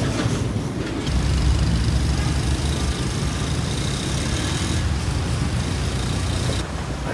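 Road traffic noise: a steady rumble of passing vehicles, changing abruptly about six and a half seconds in.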